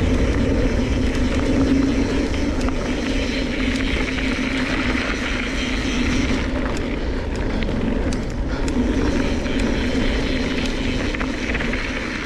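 Mountain bike rolling down a loose-gravel dirt trail at speed: a steady rush of tyre and wind noise, with scattered sharp clicks and rattles between about six and nine seconds in.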